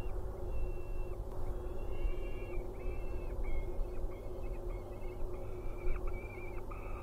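Peregrine falcon chicks calling in a run of drawn-out, even-pitched wails, about two a second and coming closer together toward the end: begging calls while an adult is at the nest with food. A steady low rumble runs underneath.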